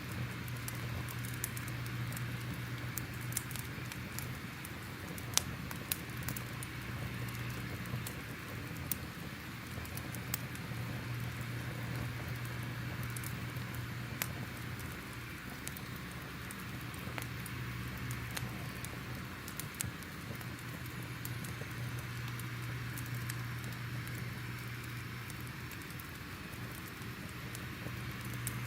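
Crackling fire: a steady hiss with frequent sharp pops and snaps scattered irregularly through it, over a low hum.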